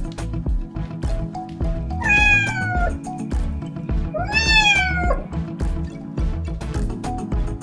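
Two drawn-out high cries from a pet, each about a second long and sliding down in pitch at the end, over background music with a steady beat.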